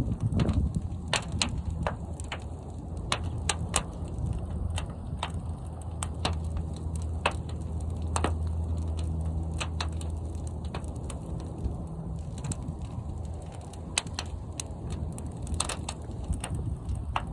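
Fire burning inside a large kiln: a steady low rumble with frequent sharp crackles and pops.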